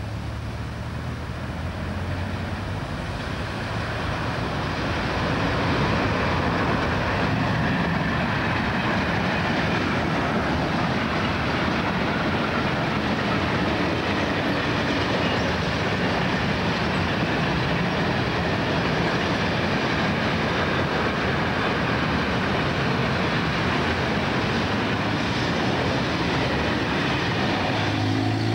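Freight train hauled by an Rc electric locomotive passing over a level crossing. It grows louder over the first several seconds as it approaches, then the wagons roll past with a steady, loud rolling noise of wheels on rails.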